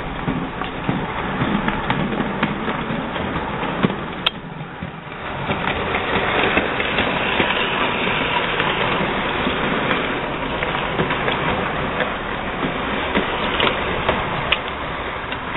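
HO-scale model train running on sectional track: the Bachmann 4-8-4 steam locomotive with its baggage car and Metrolink coaches, a steady rolling rattle with scattered clicks. It dips briefly after a sharp click about four seconds in, then grows louder as the cars pass close by.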